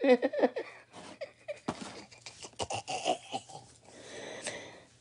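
A woman laughing in wheezy, breathy bursts after a short voiced start.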